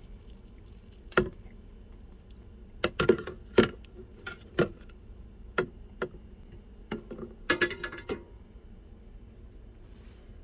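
Irregular sharp clicks and light knocks of hard objects being handled and set down, about a dozen in all, with a quick cluster of them a little before the end.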